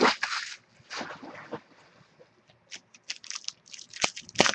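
Trading cards being handled: two short rustling slides in the first second and a half, then a quick run of light clicks and flicks as cards are sorted, loudest near the end.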